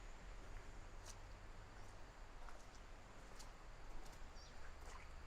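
Faint rainforest ambience: a steady, faint high insect tone with a short bird chirp about four seconds in and a few scattered light clicks.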